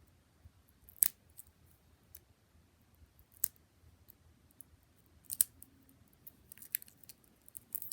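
Scattered sharp clicks and taps of small plastic putty containers being handled and worked open: single clicks at first, then a quicker run of small clicks near the end.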